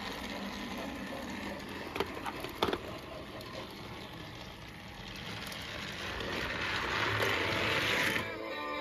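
Battery-powered toy train engine running along plastic track: a steady motor whir and rattle, with two sharp clicks about two seconds in, growing louder near the end.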